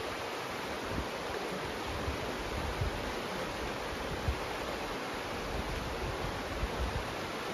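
River water rushing steadily through a narrow rock canyon, with light wind buffeting on the microphone now and then.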